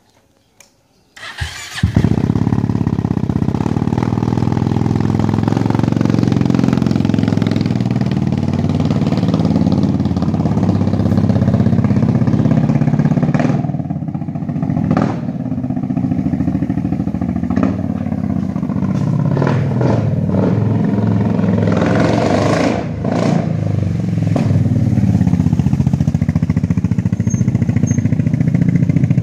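Yamaha Majesty 400 scooter's single-cylinder four-stroke engine starts about two seconds in, then runs very loud through an unsilenced aftermarket exhaust. Its pitch rises and falls with the throttle as the scooter rides away and comes back.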